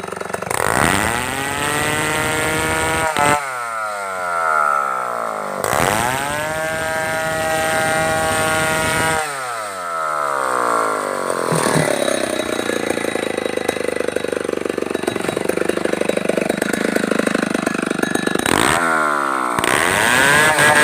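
Stihl 070 two-stroke chainsaw revved up to a high, steady whine and released several times, its pitch falling away each time the throttle is let off. In the middle comes a longer stretch of lower, rougher running.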